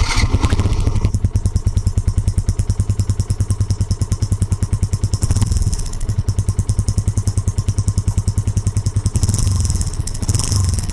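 Yamaha FZS 2018's 149 cc single-cylinder engine idling through a modified exhaust with a fast, even pulsing beat. Near the end the beat becomes less even.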